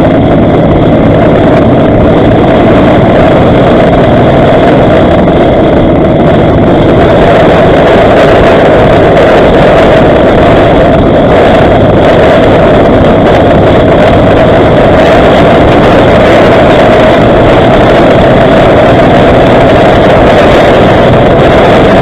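Cruiser motorcycle engine running steadily at highway cruising speed, with a loud, even rush of wind and road noise; the level stays constant with no gear changes or revving.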